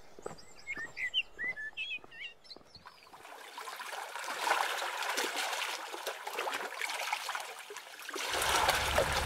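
Small birds chirping with light footsteps on gravel, then gentle sea waves washing and trickling over rocks at the shoreline. A low rumble joins the water sound near the end.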